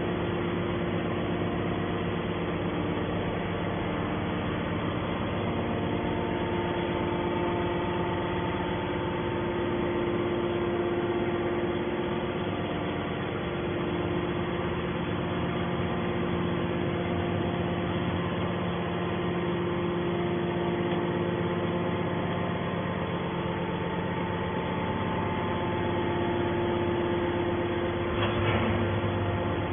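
Hydraulic scrap metal baler running with a steady, unchanging hum.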